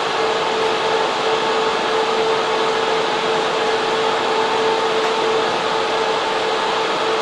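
Data center server room with its server cooling fans and air-cooling units running: a loud, steady rush of air with a constant hum over it.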